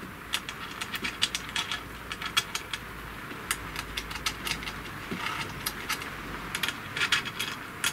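Small metal screws and fittings clicking and rattling as they are handled by hand and set into an MDF spoilboard: a quick, irregular run of light clicks.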